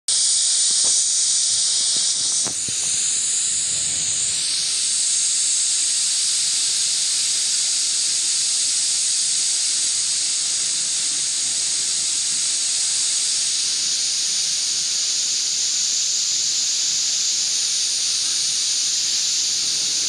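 Torrent of muddy floodwater rushing, heard as a steady, loud hiss.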